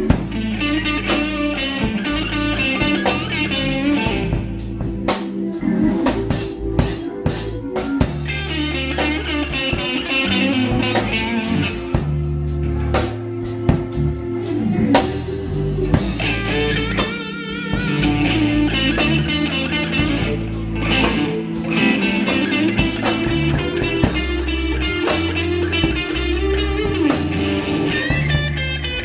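Live blues-rock band playing: a Stratocaster-style electric guitar plays lead lines with wavering, bent notes over a drum kit keeping a steady beat and a bass line.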